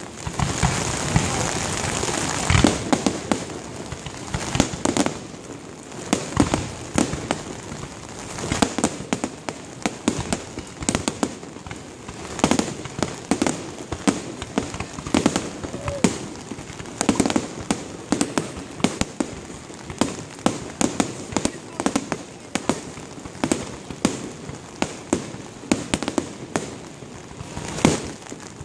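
Fireworks display: aerial shells bursting in quick, irregular bangs and crackles. A dense hissing crackle fills the first two seconds or so.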